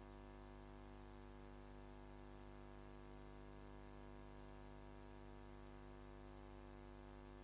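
Near silence: a faint steady electrical hum with hiss, unchanging throughout.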